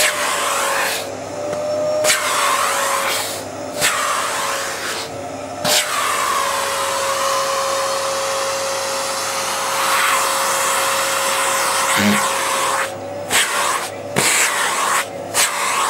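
Vacuum cleaner running, its nozzle drawn over a cat's tail and fur, with a steady whine over a rushing hiss. The hiss drops out briefly several times, mostly near the end.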